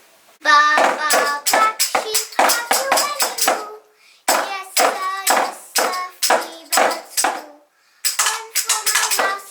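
Lively music with quick pitched notes and tambourine-like jingles, about four strokes a second, in three phrases with two short breaks.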